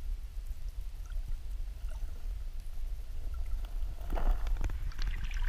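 Muffled low rumble of river water heard through a camera held underwater, with faint scattered clicks. About four seconds in, swishing and splashing of water starts to build.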